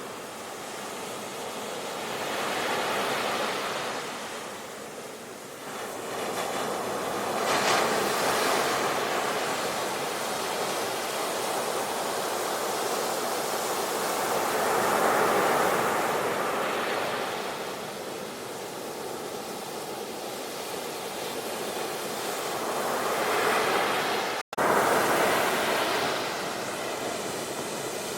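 Sea waves breaking and washing in, the surf swelling and fading in surges every few seconds. The sound cuts out for an instant near the end, then resumes.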